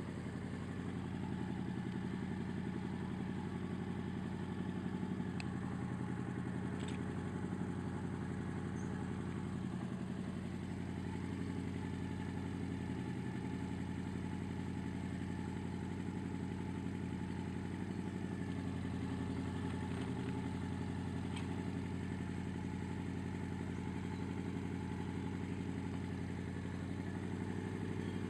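An engine running steadily at idle, with an even low hum, unseen. A few faint clicks come through above it.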